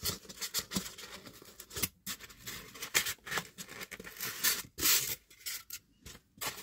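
Cardboard box being handled and opened by hand: a string of short scraping and rubbing noises from the cardboard, loudest a little under five seconds in.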